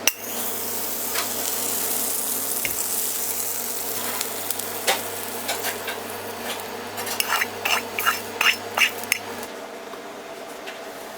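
Food sizzling in a hot pan, with metal utensils stirring and scraping in it; a quick run of sharp metal clinks comes in the second half.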